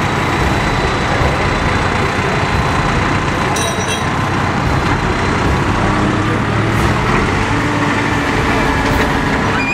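Diesel engines of heavy construction machinery, loaders and a crane truck, running steadily, with a short high clink about three and a half seconds in.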